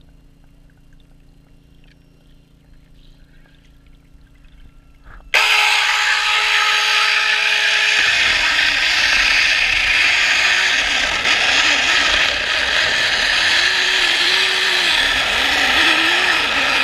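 Underwater stump-cutting machine heard through the water: a low hum, then about five seconds in a loud, steady grinding noise starts abruptly and runs on, its pitch wavering.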